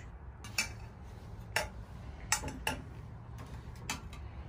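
Five light, sharp clinks of long metal skewers and dishes knocking on plates, a glass baking dish and a tile tabletop, irregularly spaced, as peeled pineapples on skewers are handled and set down.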